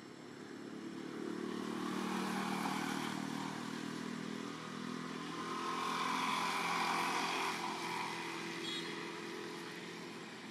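A motor vehicle's engine passing by, probably a motorcycle. It swells to a first peak about two and a half seconds in, eases off, then rises again to its loudest about seven seconds in and fades away.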